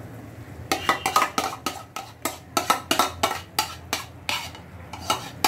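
A spoon knocking and scraping against a cooking pan in quick, uneven strokes, starting about a second in, as boiled vegetables are added and stirred into the bhaji masala.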